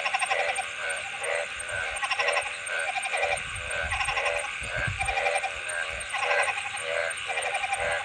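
Frogs calling: short, pulsed croaks repeating about twice a second, with fainter higher calls behind them. A low rumble comes in around the middle.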